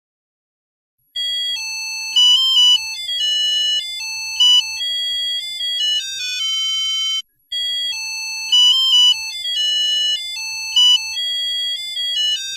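Smartphone ringtone: a synthesized melody of clear, high electronic notes. It starts about a second in and plays a phrase of about six seconds, which then repeats once.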